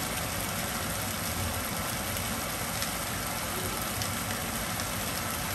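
Cubed red potatoes and bell peppers sizzling steadily in olive oil in a frying pan.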